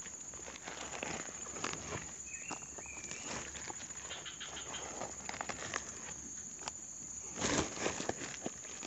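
Woven plastic sack rustling and crinkling as hands hold it open and rummage inside, with irregular crackles and one louder rustle about seven and a half seconds in.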